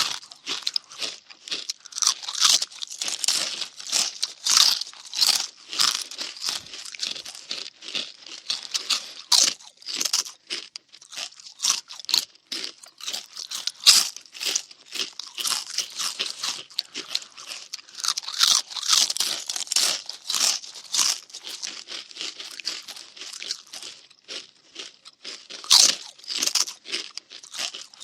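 Cartoon munching sound effect: rapid, irregular crunchy chewing and biting, like someone noisily eating something crisp.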